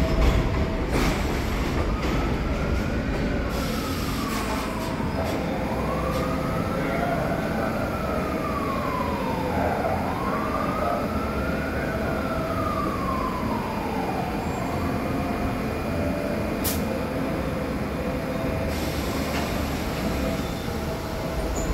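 A siren wailing slowly up and down, roughly one rise and fall every five seconds, over the steady rumble of an R62 subway train rolling past on the elevated track.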